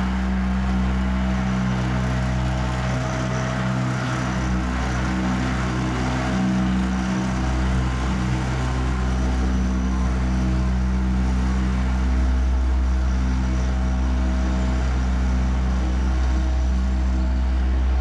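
Tandem-drum asphalt road roller's engine running steadily while it compacts fresh asphalt, a constant low machine hum.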